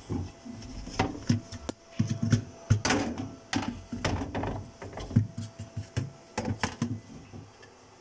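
Irregular clicks, knocks and light rattles of plastic panels and parts being handled inside a refrigerator's freezer compartment, with a faint steady tone through the middle few seconds.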